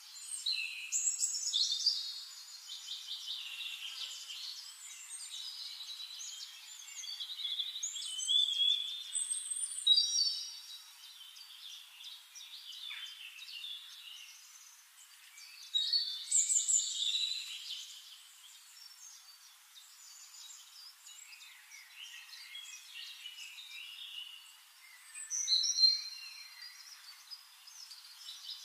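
Birds chirping and singing, many short high calls and trills overlapping, with louder bursts of song now and then.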